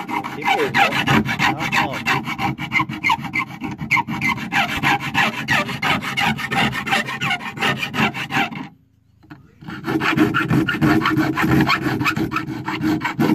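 Hand file rasping back and forth in quick strokes on the cut edge of a Chevrolet S10 rear door's sheet metal, deburring the hole cut for a speaker. The strokes pause briefly about nine seconds in, then resume.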